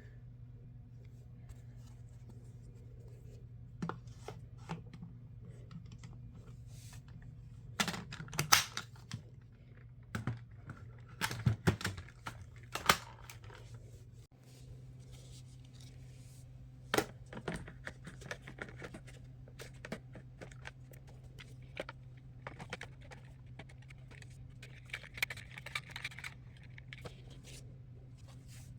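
Hands working on a Dyson vacuum's plastic parts: scattered clicks, knocks and scrapes, busiest about 8 to 13 seconds in, over a steady low hum.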